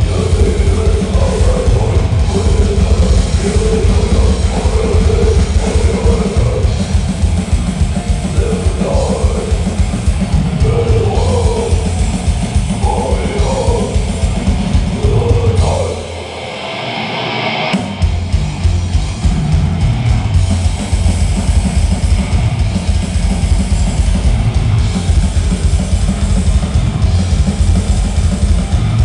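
Grindcore band playing loud and fast: pounding drums and cymbals under distorted guitar and bass. About sixteen seconds in the low end drops out for under two seconds, leaving a high cymbal and guitar wash, then the whole band crashes back in.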